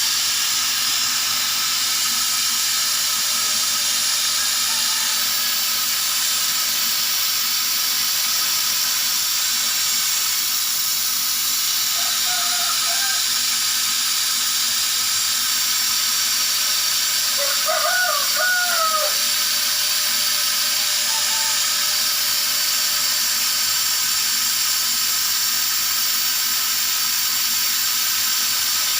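CNC laser cutter running while cutting 3 mm melamine plywood: a steady hiss at an even level. A rooster crows in the background about 18 seconds in, with a shorter call around 12 seconds.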